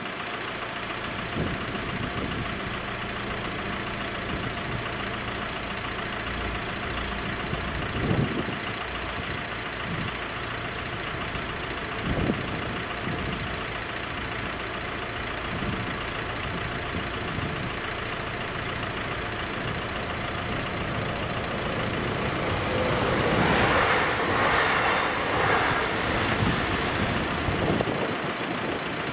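Level crossing's electronic warning bell ringing in rapid, steady strokes over waiting cars idling. About 23 seconds in, a louder rush swells for a few seconds: the train going over the crossing.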